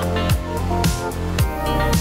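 Background music with a steady beat, low drum strokes about twice a second under sustained instrument tones.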